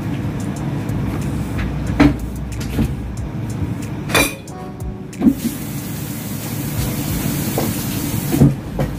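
Kitchen clatter during cleanup at the counter and sink: a few scattered knocks and one ringing clink of a dish or utensil, over a steady low hum. A hiss runs from about halfway through until just before a last knock near the end.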